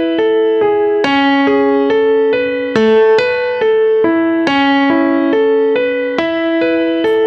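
Background music: a piano-like keyboard playing a steady, evenly paced run of broken-chord notes, about two to three notes a second.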